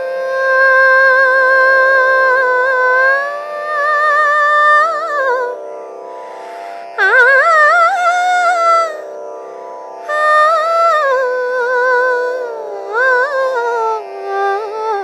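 A woman's voice singing a wordless, Carnatic-style opening melody in three long phrases, with held notes, slides and vibrato, over a steady drone. The last phrase winds downward near the end.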